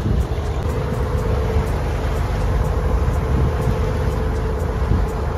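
An excursion boat's engine running steadily under way: a low rumble with a steady hum, mixed with the wash of its wake along the hull.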